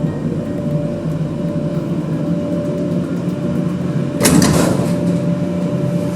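Lift machinery running with a steady hum, and a sudden clatter about four seconds in.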